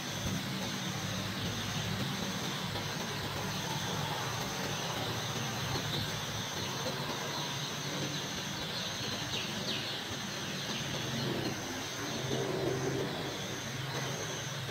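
A brood of young chicks peeping over a steady low hum.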